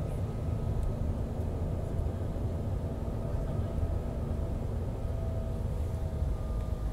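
Cabin noise of a jet airliner taxiing: a steady low rumble with the engines' faint idle whine held at a few even pitches.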